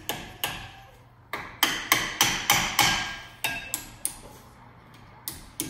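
Sharp metal-on-metal taps, about three a second in short runs with a faint ring, as a brake pad retaining pin is tapped through a Jeep Grand Cherokee SRT front brake caliper with a makeshift hammer.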